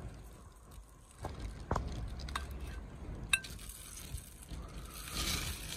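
Quiet handling sounds of a lemon half being squeezed by a hand in a plastic glove over a glass salad bowl: soft rustling and squishing, with three light clinks of a fork against the glass.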